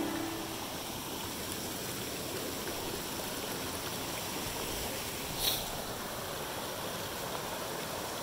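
Small mountain stream running and splashing over rocks and a fallen log, a steady rushing hiss. A brief sharper sound stands out about five and a half seconds in.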